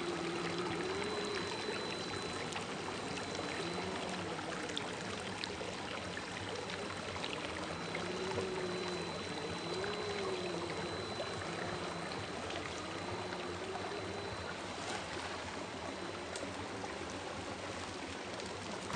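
Steady rush of a creek, with the faint whine of an RC crawler's Holmes Hobbies 550 21T brushed motor rising and falling in pitch as it crawls slowly over rocks.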